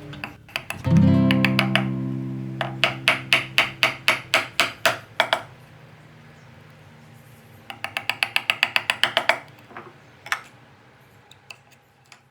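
Acoustic guitar music: a ringing chord, then quick runs of sharp rhythmic strums twice, dying away to silence at the end.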